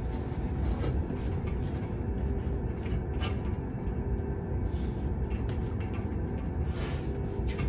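Chalk scraping and tapping on a blackboard in a few short strokes while a formula is drawn, with a brighter, longer stroke near the end, over a steady low rumble.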